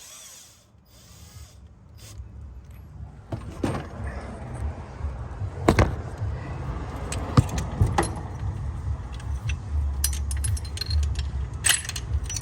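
Scattered metallic clinks and knocks from an AC hose crimping tool and a hose fitting being handled, over a steady low rumble.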